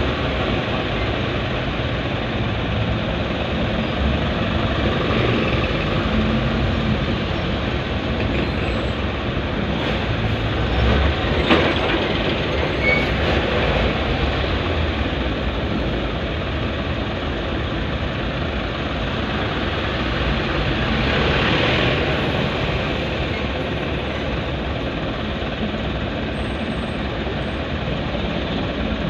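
Road traffic in a slow-moving jam: the engines of surrounding cars and trucks running steadily, with one short sharp knock about eleven and a half seconds in.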